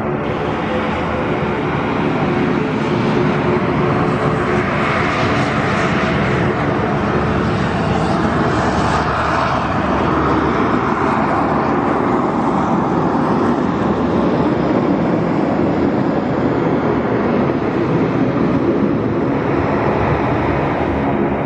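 Embraer Phenom 300 business jet on landing approach, its twin Pratt & Whitney Canada PW535E turbofans giving a steady jet rush with several held low tones under it. The sound grows a little louder over the first few seconds, then stays steady.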